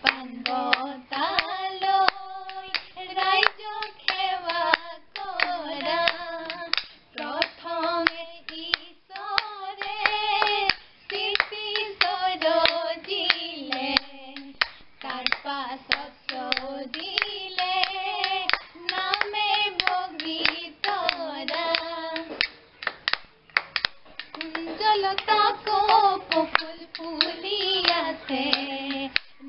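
Women singing a Bihu naam, an Assamese folk song, to a steady rhythm of hand claps and the clack of a split-bamboo toka clapper.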